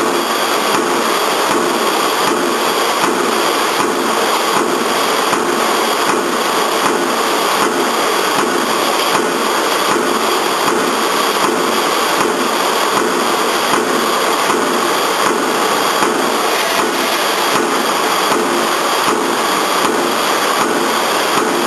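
Single-station mechanical power press of a CNC punching machine running steadily, with a regular knock of punch strokes at about two a second as it punches holes through steel plate.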